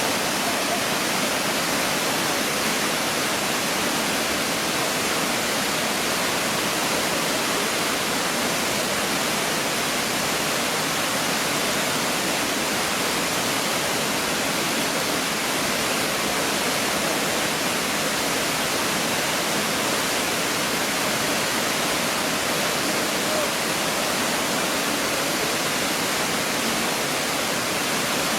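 Steady rushing of Shiraito Falls, a broad curtain of many thin cascades, falling water with no change in force.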